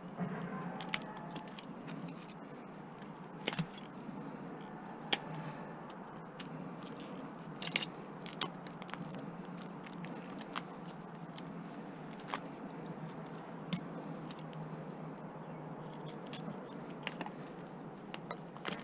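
Scattered clicks, ticks and scrapes of hand tools on the plastic and metal parts of a small kitchen appliance being taken apart for its motor, over a faint steady hum.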